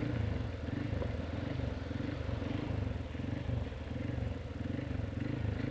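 Small motorcycle engine running at low, fairly even revs while riding slowly in traffic, with a light hiss of rain and wind over it.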